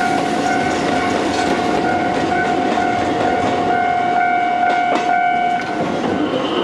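Kotoden electric train running past a level crossing, its wheels clattering on the rails under the crossing's warning alarm, a steady ringing tone. The alarm stops about five and a half seconds in as the train pulls away.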